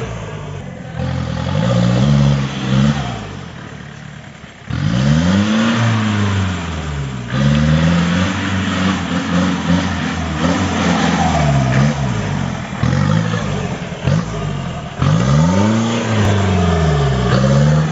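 Off-road jeep's engine revving hard again and again while it climbs a muddy trail, the pitch of each rev rising and falling over a second or two. It starts quieter, then jumps in level about five seconds in.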